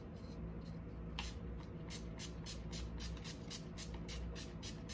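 NYX Matte Finish setting spray's pump bottle misting the face in a quick run of short spritzes, about four a second, starting about a second in.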